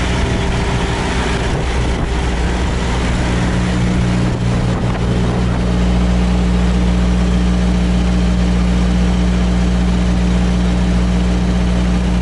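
Semi-truck's diesel engine idling steadily, slightly louder and steadier from about six seconds in.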